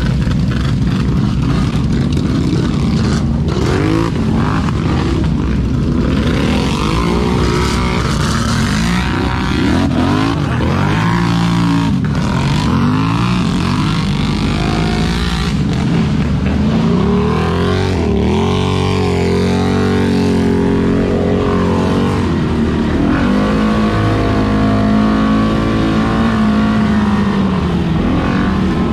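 ATV engine revving up and dropping back again and again, with a steady rushing noise underneath.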